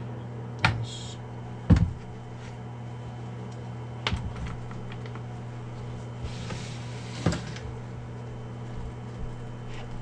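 Hands fitting coax cables and a duplexer into a hard plastic Pelican case: four sharp knocks and clicks, the loudest near two seconds in, and a short rustle a little past the middle, over a steady low hum.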